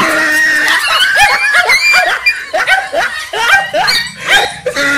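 A person laughing while small dogs bark and yap, many short calls in quick succession.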